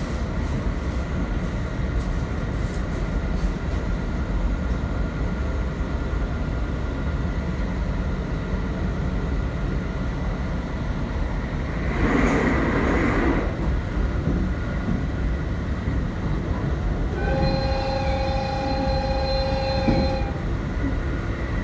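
A JR Hokkaido 721 series electric train running, heard from on board: a steady low rumble of wheels on track. About twelve seconds in there is a brief rush of noise. Near the end a steady high tone, made of several notes, holds for about three seconds.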